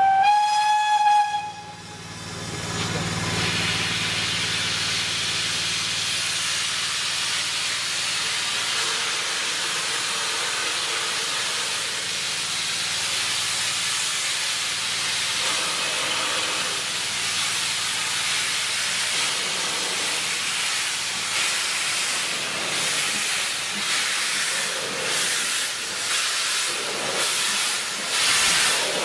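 Steam locomotive, the BR Standard 4 tank engine 80078, gives a short whistle blast. Then comes a steady hiss of escaping steam from its open cylinder drain cocks as it runs in. Near the end, as it passes close, the hiss pulses about twice a second with the engine's beats.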